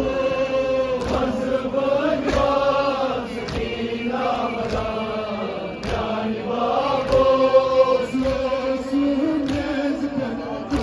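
Men's voices chanting a Kashmiri noha, a Shia Muharram lament, in a slow, rising and falling melody, with the crowd's chest-beating (matam) landing as sharp strikes about once a second in time with the chant.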